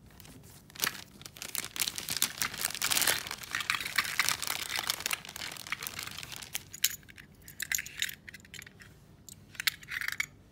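Clear plastic bag crinkling and rustling as hands handle it and pull acrylic keyrings out. The crinkling is dense for the first several seconds, then comes in scattered crackles toward the end.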